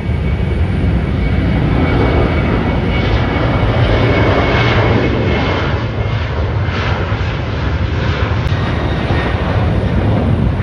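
Boeing 737-800 jet airliner's CFM56-7B engines running, a loud, steady noise with a heavy low rumble that swells slightly a few seconds in.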